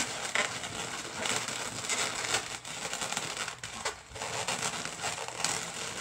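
Latex modelling balloons rubbing against each other as hands push black 260 balloon eye pieces between the twists of a yellow balloon body. The rubbing is steady and crinkly, with irregular short scratchy strokes.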